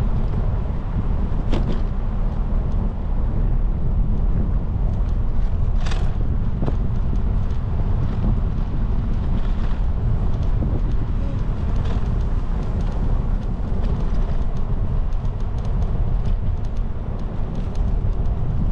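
Wind buffeting the microphone of a camera on a moving bicycle: a steady low rumble, with two sharp clicks about one and a half seconds in and about six seconds in.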